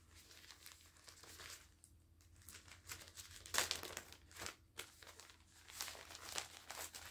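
Packaging of a pack of microfiber washcloths crinkling and tearing as it is pulled open by hand, in irregular rustles, the loudest about halfway through.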